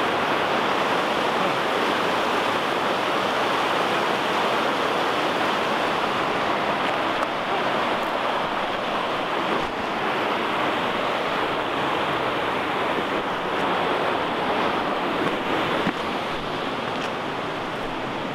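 Rushing whitewater of a rocky mountain river, the South Fork Snoqualmie, pouring over and around boulders: a steady, unbroken rush that drops a little in level near the end.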